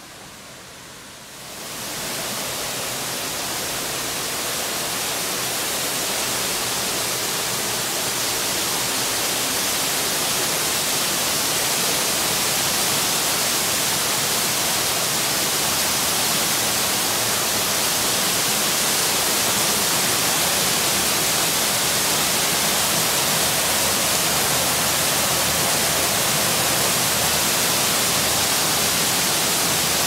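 Waterfall pouring over rock inside a cave: a steady rushing hiss. It comes in suddenly about a second and a half in over a much quieter start, then grows slowly louder.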